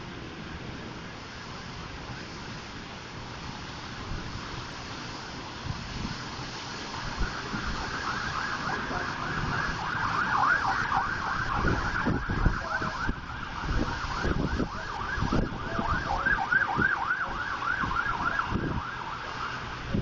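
Emergency vehicle siren in a fast yelp, its pitch rising and falling several times a second. It comes in strongly about eight seconds in and stops shortly before the end, with short low rumbles underneath.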